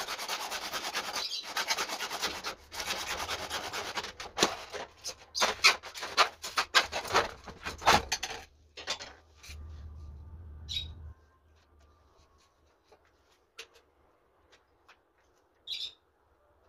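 PVC pipe being cut with a hand saw: quick rasping back-and-forth strokes that stop about eight seconds in. A brief low hum and a couple of faint short chirps follow.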